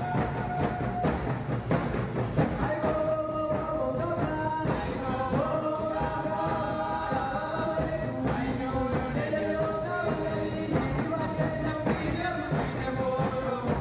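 Background music with a steady beat and singing.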